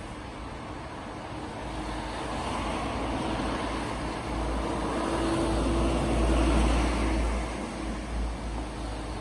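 A road vehicle passing by: a low rumble and tyre noise that build over several seconds, peak about six seconds in, then fade.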